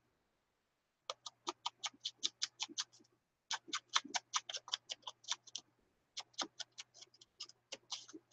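Small foam ink blending tool dabbed rapidly onto a paper art card, light quick taps about five a second in four short runs with brief pauses between.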